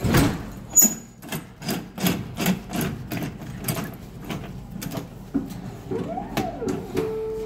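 A Royal Vision bottle-drop vending machine's door knocks shut, then its metal T-handle lock clicks and knocks about two to three times a second as it is worked to draw the door tight. Near the end a steady electronic tone starts.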